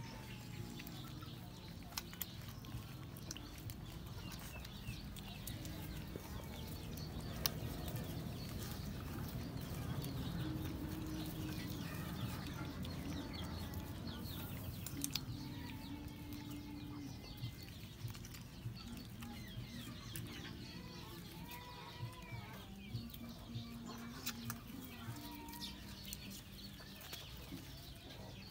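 Puppies suckling at their mother, with many small smacking clicks, and a chicken clucking now and then, over a low steady hum.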